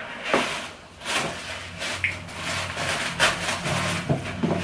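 Packaging being handled and unwrapped by hand: a run of irregular rustles and scrapes.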